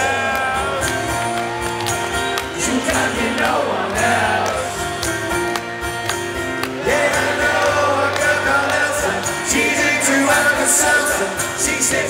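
Live band music over the PA: a man sings with a strummed acoustic guitar and the band behind him.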